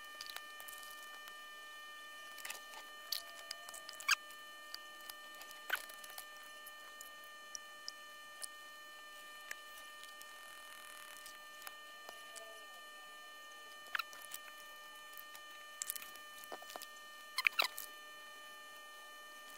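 Scattered light clicks and taps of a glass snow globe and small parts being handled and fitted together, the sharpest about 4 and 6 seconds in and near the end. Under them runs a faint steady electrical whine.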